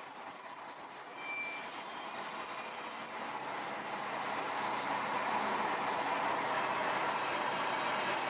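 JR Shikoku KiHa 32 diesel railcar pulling slowly into the platform, its rolling noise growing as the front end comes alongside. A thin high squeal joins in during the last couple of seconds as it slows.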